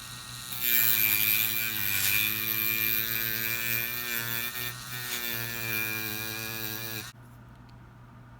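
A small electric power tool's motor running steadily with a hiss, starting about half a second in, dipping briefly in pitch around two seconds in, and cutting off suddenly about seven seconds in.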